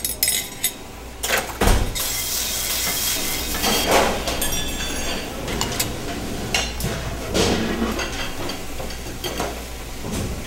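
Dishes, pans and cutlery clattering and knocking at a commercial kitchen's dish station, with several sharp knocks over a steady hiss.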